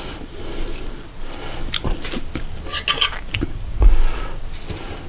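Metal serving utensils clinking and scraping against a ceramic dinner plate as food is served onto it: a run of separate clicks, with a heavier thump about four seconds in.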